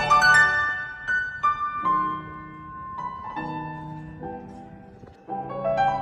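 Background music: a gentle piano piece, single notes and chords that ring and fade, with a quick rising run of notes near the end.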